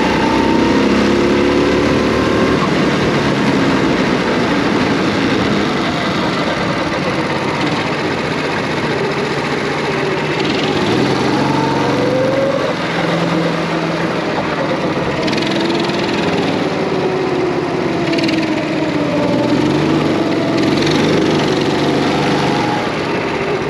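Go-kart engines running on the track, their pitch rising and falling with the throttle through the corners, with more than one kart heard at once.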